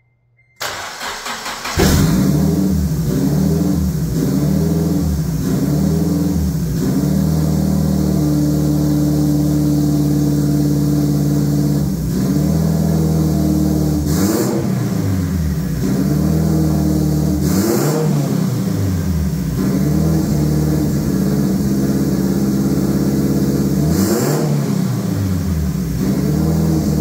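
Turbocharged K24A4 2.4-litre four-cylinder of a 2004 Honda Element cranking briefly and catching about two seconds in, then running steadily with several throttle blips. The three sharpest blips each come with a short hiss. This is its first start on a KTuner ECU with a factory base map.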